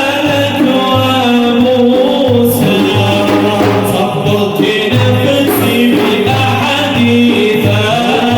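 Sufi devotional praise song (madih) sung by a group of voices over a steady beat of frame drums.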